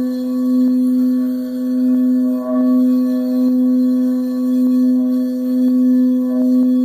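Frosted quartz crystal singing bowl being rimmed with a mallet, giving one sustained, steady low tone with fainter overtones above it. The tone swells and fades gently over and over as the mallet circles the rim.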